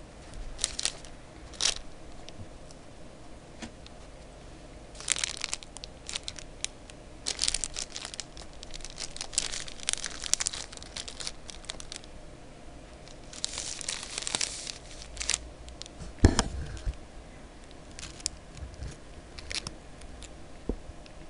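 Thin plastic bread wrapper crinkling and rustling in the hands in irregular bursts, with a single dull thump about three-quarters of the way through.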